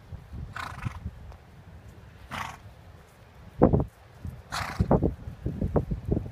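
A horse cantering on grass: dull, irregular hoofbeat thuds, the loudest a little before four seconds in, with three short hissing bursts about two seconds apart.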